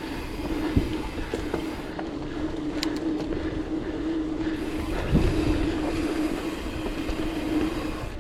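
Mountain bike rolling along a dirt trail, giving a steady buzzing hum over rushing wind noise, with a couple of dull thumps as the bike hits bumps.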